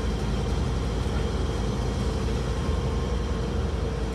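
Steady drone of a 2008 Scania N230UD Omnicity double-decker bus under way, heard from the upper deck: its five-cylinder diesel engine running evenly under a wash of road and body noise.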